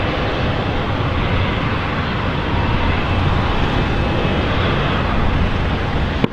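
Jet airliner engines making a loud, steady rumbling noise with no clear pitch, cut off abruptly at the end.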